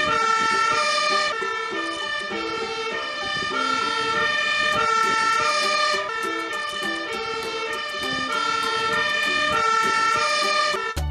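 Fire engine's two-tone siren, switching between a high and a low note about once a second, rich in overtones.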